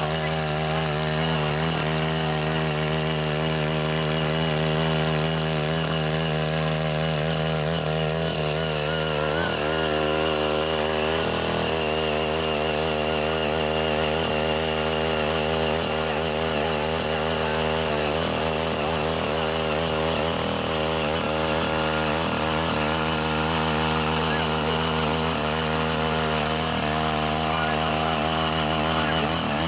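Ching Yee CY80 mini garden tiller's small engine running steadily under load as its rotary tines churn through untilled soil, the pitch wavering slightly now and then as the tines bite.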